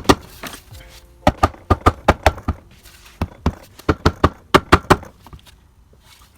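About a dozen sharp knocks in quick, uneven succession as the torque converter housing is tapped down onto the CVT transmission case to seat it, then they stop about five seconds in.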